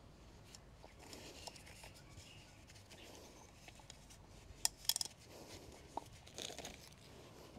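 Gloved hands working the old rubber O-ring off an oil filter cap: faint rubbing and rustling, with a quick cluster of sharp clicks a little past the middle.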